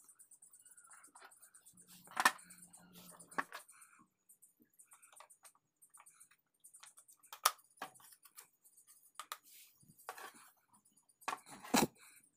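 Parts of a dismantled electric hand planer being handled: scattered clicks and knocks of metal and plastic pieces, with a sharp knock about two seconds in, another about seven and a half seconds in, and a heavier knock with a low thud near the end.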